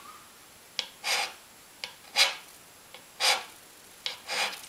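Hand scraper ground from an old file cutting the cast-iron sole of a Stanley Bailey plane: four short scraping strokes about a second apart, some begun with a sharp tick. Each stroke shaves off a high spot marked with bluing, to bring the sole flat.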